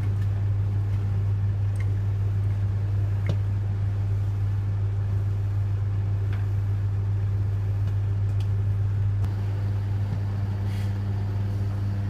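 Bendix 7147B front-loading washing machine turning its drum through the wash, with a steady motor hum and a few faint clicks from the tumbling load. The motor note shifts slightly about nine seconds in.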